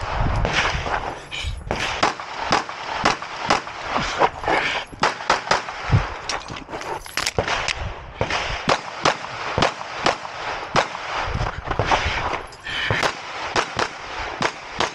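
A semi-automatic pistol fired many times in quick pairs and strings, a competitor shooting a timed IDPA stage.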